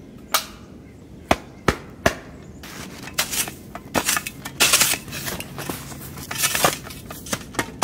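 Metal snow shovel being handled: four sharp clicks in the first two seconds as it is readied, then a run of chops and scrapes as the blade is driven into the snow.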